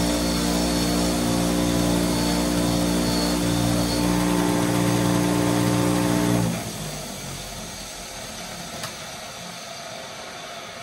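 Motor-driven wire wheel running with a steady motor hum and the harsh scratching of wire bristles brushing rust off a steel adjustable wrench to uncover its maker's stamp. It cuts off about six and a half seconds in, leaving a much quieter noise with one small click.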